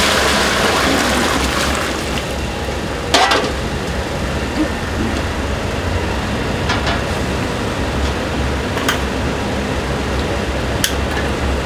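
Noodle-shop kitchen at work: a steady low rumble under a rushing hiss in the first two seconds, then a few sharp clinks of utensils against pots and pans.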